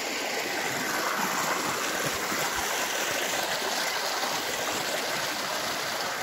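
Shallow creek water running steadily over smooth sandstone bedrock and into a pool.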